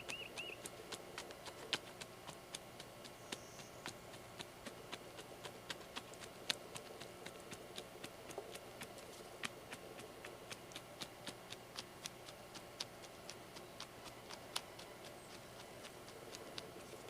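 A long run of sharp, irregular clicks and ticks, roughly three a second and uneven in strength, over a faint steady background.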